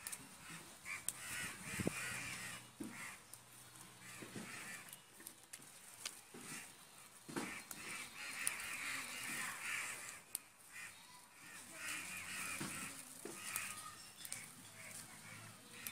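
Red spinach leaves and stems rustling and snapping as they are picked apart by hand over a plastic sheet, with a few short clicks. Birds call at intervals in the background.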